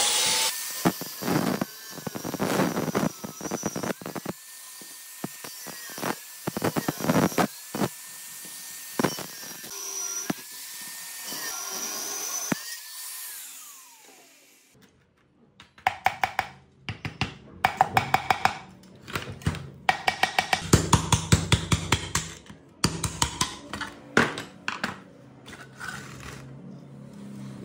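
Metal knocks, clinks and scraping from hand tools working on a rusty electric water pump as it is taken apart, with bursts of rapid tapping in the second half.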